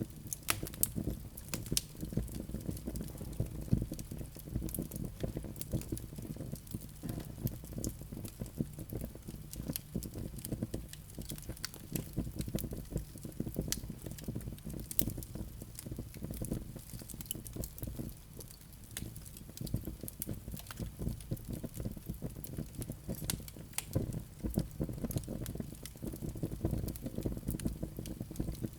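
Log fire crackling: a dense, irregular run of sharp pops and snaps over a steady low rumble of the burning fire.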